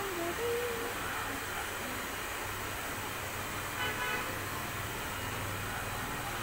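Steady background hiss with a low hum, and a short horn-like toot about four seconds in.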